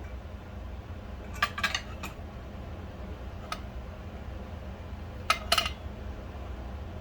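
Small metal pieces clinking and tapping together in two quick clusters of a few strikes each, with a single tap between them, over a steady low hum.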